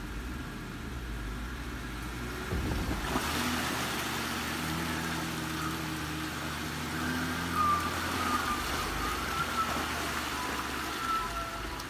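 Jeep Wrangler JK engine running steadily, then pulling harder about three seconds in as the Jeep drives through a muddy water hole, its tires churning and splashing through mud and water.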